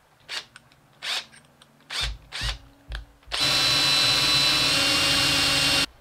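A few short knocks, then a power drill boring a lead-weight hole into a poplar wood lure body. It runs at a steady speed with a whine for about two and a half seconds, then stops abruptly.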